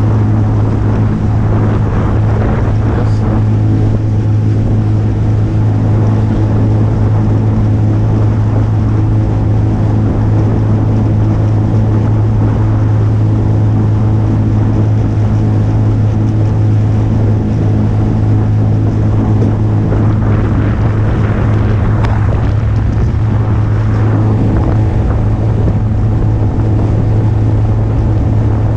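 Small metal motorboat under way, its motor running with a steady, unchanging drone. Water rushes along the hull and wind buffets the microphone throughout.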